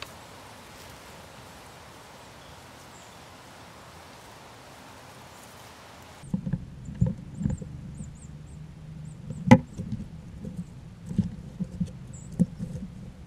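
A steady outdoor hiss, then, after an abrupt change, a run of close thumps and taps with one sharp click: small rodents moving about and feeding at the feeder right by the microphone.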